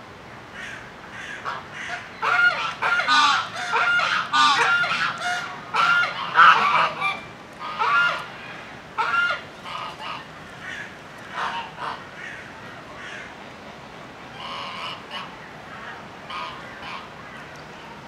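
Domestic geese honking: a loud run of repeated honks from about two seconds in until about nine seconds, then a few fainter, scattered honks.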